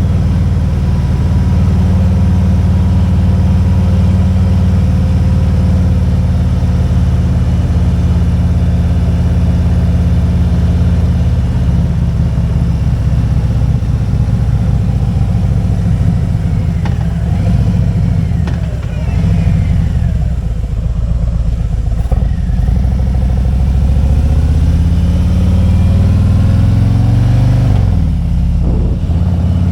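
Motorcycle engine running under way, steady at first, easing off around the middle, then picking up speed with a rising pitch. It dips briefly near the end before running steadily again.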